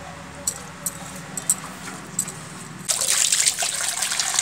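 A few light clicks, then about three seconds in water starts gushing from a hose into an aluminium basin with a steady rush.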